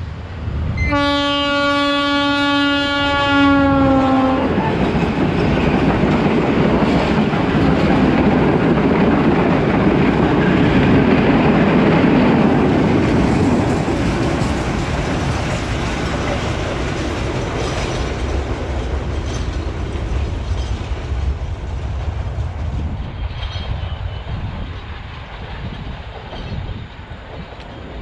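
A Sri Lanka Railways diesel train sounds one long horn blast lasting about three and a half seconds, dropping slightly in pitch as it ends, then passes close by with a loud rumble of engine and wheels on rails that peaks about ten seconds in and slowly fades.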